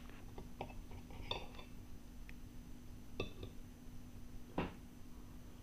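Knife and fork clinking against a ceramic plate while cutting a pancake: a few faint, scattered clinks, a couple ringing briefly, and one louder knock near the end.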